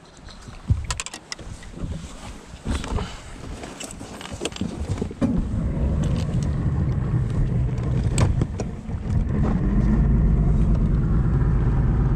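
A bass boat's outboard motor starts after a few knocks and rattles of gear, about five seconds in, and runs with a steady low hum. It falters briefly, wanting to stall, then picks up and runs louder as the boat gets under way.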